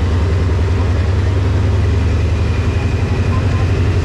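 Diesel-electric locomotive engine idling, a steady deep drone with no change in pitch.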